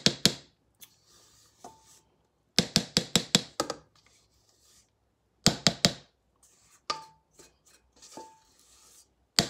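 A spatula knocking against a stainless steel stand-mixer bowl to shake cake batter out, in three quick runs of sharp knocks: a few at the start, about six a few seconds in, and four more past the middle. The metal bowl rings briefly a few times between them.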